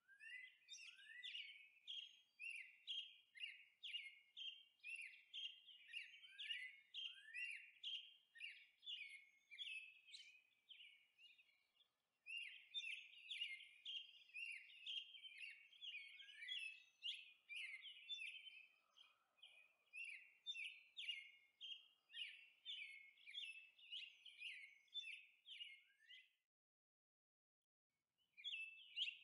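Felt-tip marker tip squeaking on paper as it dabs out short dots and dashes, about two high squeaks a second, each dipping slightly in pitch. It breaks off briefly twice.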